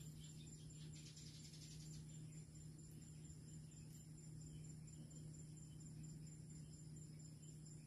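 Near silence: a faint steady low hum with a faint, high, finely pulsing whine above it.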